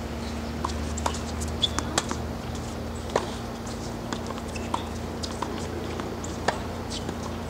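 Tennis balls struck by rackets and bouncing on a hard court during a rally. Sharp pops come at irregular intervals, the loudest a little after one and a half seconds, at two, just after three and at six and a half seconds. Under them runs a steady low hum.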